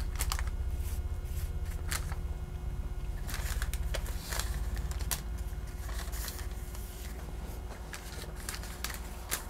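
Pastry brush dabbing and stroking melted butter onto a single thin sheet of phyllo dough in a parchment-lined pan, giving soft irregular taps and scrapes of the paper-thin dough, over a low steady room hum.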